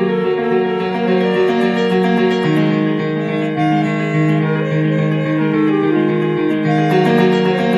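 Instrumental music played on a keyboard with some guitar: slow, sustained chords and a melody of held notes, without drums.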